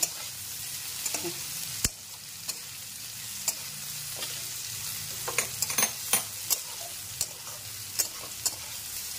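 Potato and pointed gourd slices sizzling in hot oil in a metal kadai while a metal spatula stirs them, scraping and clinking against the pan at irregular moments, with one sharp knock about two seconds in.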